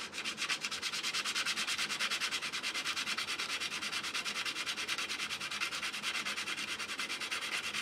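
Hand-sanding with a small piece of sandpaper on the painted sheet-metal base of a Lionel 3656 cattle corral, in quick, even back-and-forth strokes, several a second, rubbing the paint off down to bare metal so the ground connection will work. The sanding stops abruptly near the end.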